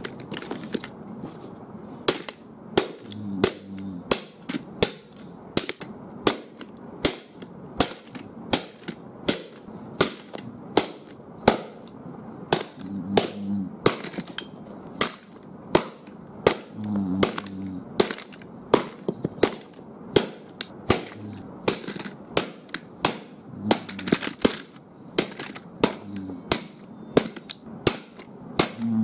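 Repeated blows of a wooden plank smashing a plastic pull-back toy race car against a carpeted floor, about two sharp strikes a second, with plastic cracking and pieces breaking off.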